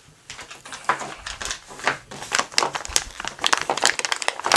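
Plastic packaging crinkling and crackling as parts are handled and unwrapped, in irregular bursts that grow busier toward the end.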